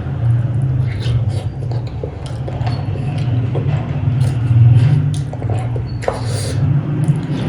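A person chewing and smacking on cooked goat head meat, in short wet clicks and bursts that come and go, over a loud steady low hum.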